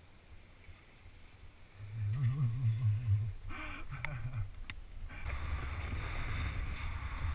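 Snowboard scraping and sliding through snow, with wind rushing on the microphone. About two seconds in there is a low, wavering, muffled voice-like sound, then a few sharp knocks, and from about five seconds the hiss of snow and wind grows loud and steady.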